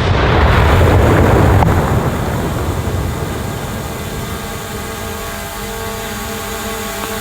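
Tannerite explosion: a loud rolling roar that fades over about two to three seconds and settles into a steady lower rumble.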